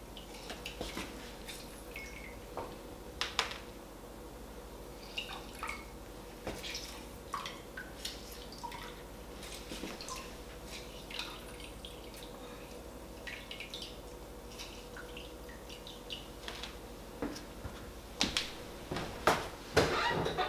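Limes being squeezed by hand over a glass measuring jug, the juice dripping into it, with scattered small clicks and ticks. A few louder knocks and clatters come near the end.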